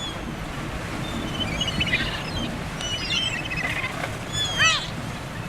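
Gulls calling in a storm over a steady noise of wind and surf. There are scattered calls, then a louder run of short, arching call notes about four and a half seconds in.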